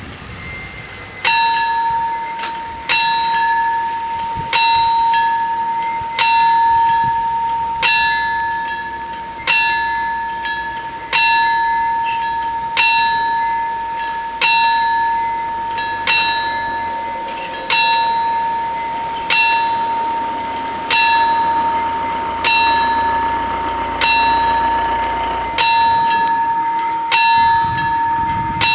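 Italian level-crossing warning bell (FS 88 crossing) struck about once every one and a half seconds, each clear ringing strike fading before the next, starting about a second in. It warns that a train is approaching and the barriers are coming down. Near the end the strikes come closer together.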